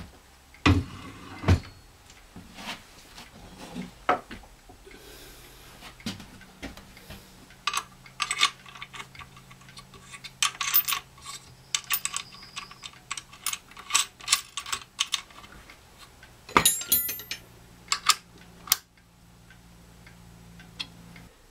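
Metal clicks, clinks and knocks as a cross-slide drill press vise is handled and its crank handle turned, with loud knocks about a second in and about three-quarters of the way through. A low steady hum runs underneath from about six seconds in.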